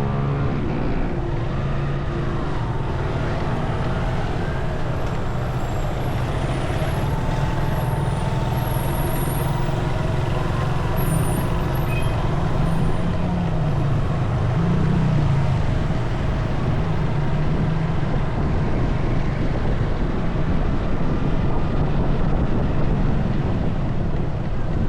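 Motorcycle engine running steadily under way. Its pitch rises and falls a little with the throttle around the middle, over a steady rush of road and air noise.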